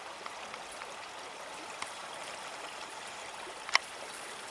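Stream water running and trickling steadily, with a single sharp click about three and a half seconds in.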